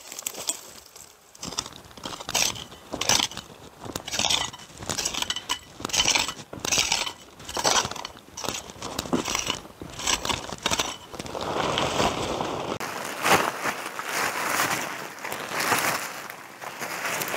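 A hand digging tool scraping and crunching into dry dirt in repeated strokes, about one or two a second. In the last few seconds this gives way to a steadier rustle, like a nylon pop-up tent being handled.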